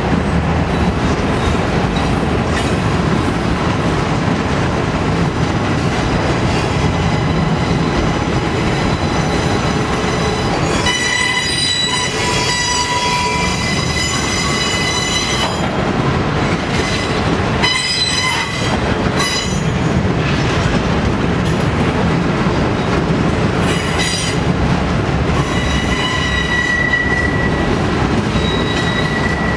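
Autorack freight cars rolling past at steady speed, a continuous rumble and clatter of wheels on rail. High wheel squeal sets in about eleven seconds in for several seconds, and again near the end.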